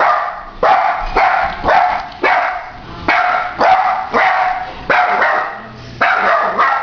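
Dachshund barking over and over in quick succession, about two sharp barks a second with a brief pause near the end: alarm barking at a stranger in the house.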